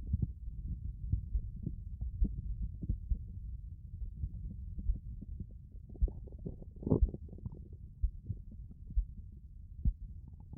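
A man's stomach growling and gurgling, picked up right against the belly: a low rumble with many small irregular pops, and one louder gurgle about seven seconds in.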